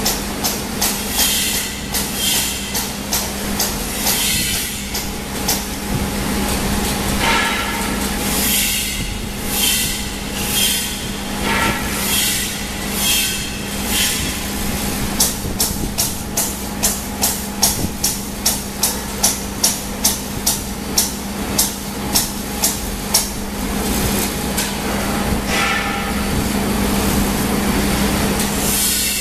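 Toy filling line (BC560 stuffing machine with BC502-3) running: a steady machine hum under repeated sharp puffs and clicks of air as fibre is blown through the filling nozzle into plush toys, for a stretch in the middle about three every two seconds.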